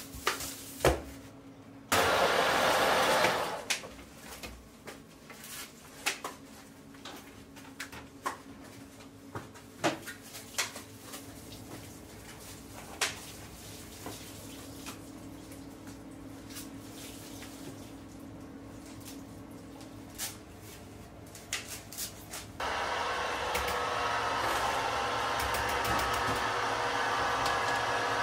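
A commercial kitchen food processor's motor running with a steady whir, briefly about two seconds in and again for the last five or six seconds, with clinks and knocks of pots and utensils in between.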